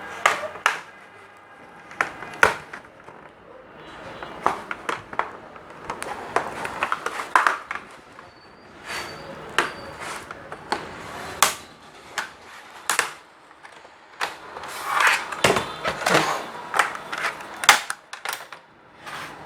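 Irregular sharp clicks and knocks of a plastic laptop case being pried apart and its back cover taken off.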